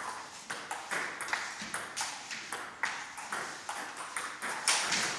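Table tennis balls clicking off paddles and bouncing on tables in a rally, several sharp clicks a second at an uneven pace, with other tables' rallies mixed in.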